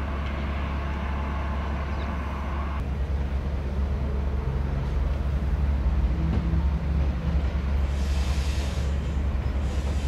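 A Stadler WINK multiple unit running on its diesel engine, approaching slowly with a steady low hum. A hiss swells up about eight seconds in.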